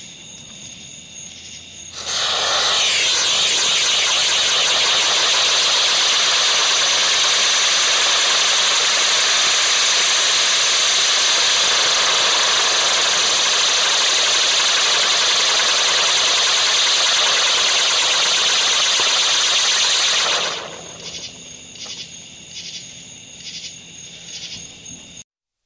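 Red Lantern Spinning Wheel firework burning as it spins and sprays sparks: a loud, steady hiss that starts abruptly about two seconds in and dies away after about eighteen seconds.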